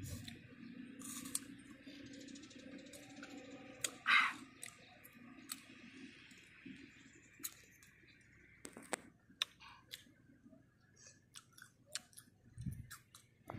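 Close-up chewing and crunching of fresh fruit, with scattered mouth clicks and smacks and one louder crunch about four seconds in.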